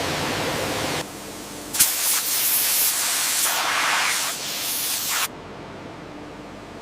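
A loud, steady hiss starts sharply about two seconds in and cuts off suddenly about five seconds in, over a quieter steady machine noise.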